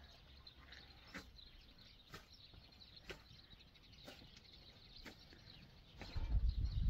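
Bread dough being kneaded by hand in a large metal basin: faint soft pressing and slapping about once a second, with faint bird chirps. A louder low rumble starts near the end.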